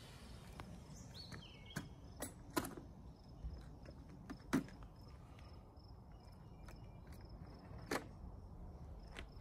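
Faint, scattered clicks and knocks of a small vacuum and its flexible hose being carried and set down on asphalt, the vacuum switched off, the loudest knock about halfway through. A faint high pulsing chirr runs underneath.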